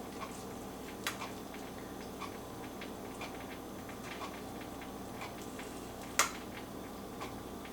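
Faint, regular ticking about once a second over a steady low hum, with one sharper, louder click about six seconds in.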